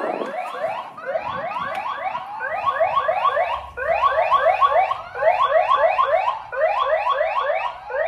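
Aqara G4 video doorbell's forcible-dismantle (anti-theft tamper) alarm going off: a loud electronic siren of fast rising sweeps, about four a second, in runs of about five with short breaks between them. It means the doorbell has been pulled from its mount.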